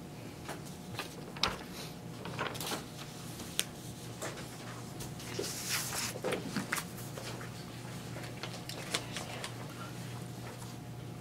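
Scattered light knocks and clicks with paper rustling as papers are handled and someone moves about, including a brief burst of rustling about six seconds in, over a steady low room hum.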